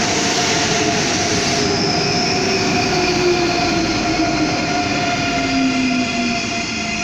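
ICE 3 high-speed electric train braking to a stop along the platform: a loud rumble of wheels on rail under an electric whine that falls steadily in pitch as the train slows, with thin steady higher tones above it. The sound eases slightly near the end.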